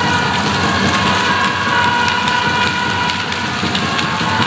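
Dense supporters' din: a drum being beaten and hand clappers rattling in a fast, constant clatter over crowd noise, with steady high tones held through it.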